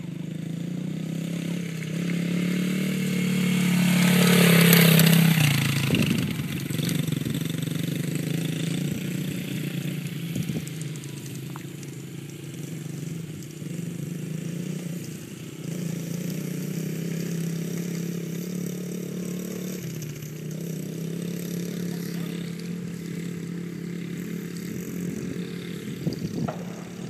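Small youth dirt bike engine running steadily while being ridden. It grows louder to a peak about five seconds in, dipping in pitch there, then carries on steadily and somewhat fainter.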